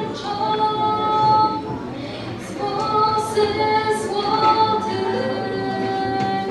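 A woman singing a Polish Christmas carol (kolęda) solo, accompanying herself on acoustic guitar, with long held notes.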